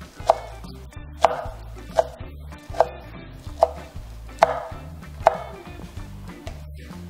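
Kitchen knife chopping on a cutting board, seven single cuts at an even pace of about one every 0.8 seconds, over background music.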